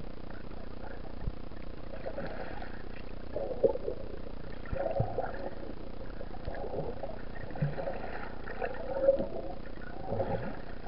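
Muffled underwater sound picked up by a submerged camera: water moving around the housing, with irregular gurgles and scattered clicks.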